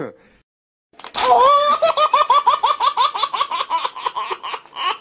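Loud, high-pitched laughter: a long run of rapid 'ha-ha-ha' pulses, about five a second, starting about a second in after a brief silence.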